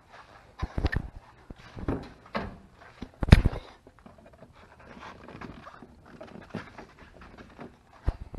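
Footsteps and handling knocks, with a louder clunk about three seconds in as the hood release lever under the dash of a 1996 Mitsubishi Pajero Mini is pulled.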